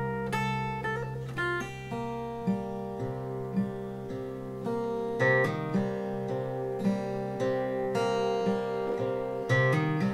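Background music: acoustic guitar playing plucked notes and strummed chords at an unhurried pace.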